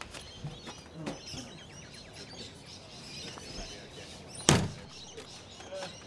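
The rear prisoner-pod door of a police ute is shut hard once, about four and a half seconds in: a single loud slam.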